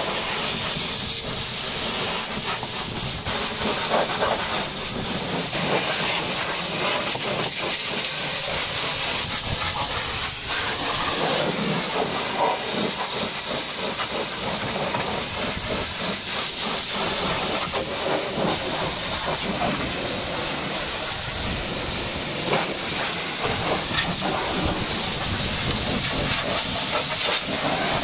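High-pressure washer jet hissing steadily as it blasts the engine and the underside of a tilted truck cab, with water spattering off the metal.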